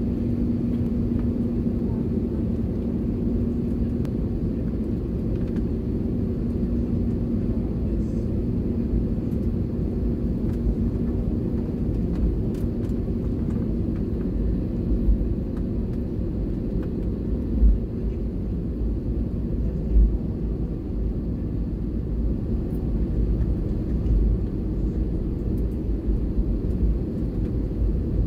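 Cabin noise of an Airbus A320-family airliner taxiing: a steady low rumble of the engines at idle, with a humming tone in the first few seconds and two short low thumps about two seconds apart past the middle.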